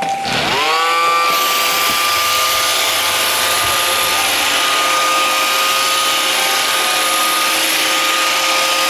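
iRobot Roomba 560 robot vacuum starting up: its vacuum and brush motors spin up with a rising whine over the first second or so, then run steadily with a constant whine over a rushing hiss.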